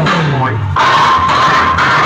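Loud dance music blasting from a bank of aluminium horn loudspeakers on a DJ sound-box rig, with falling bass slides near the start and a sustained high tone after that.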